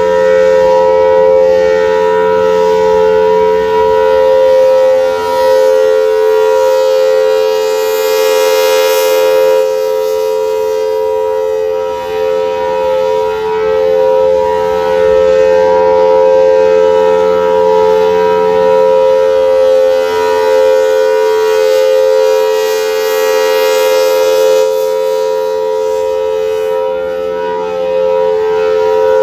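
Federal Signal Thunderbolt 1000T tornado siren sounding its steady Alert signal: a loud, held two-note chord whose pitch does not rise or fall. The sound swells and fades every several seconds as the rotating siren head sweeps past.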